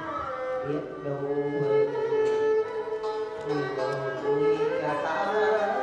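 Traditional Vietnamese water-puppet theatre ensemble playing an instrumental passage: a melody of held string notes that slide in pitch, rising near the end.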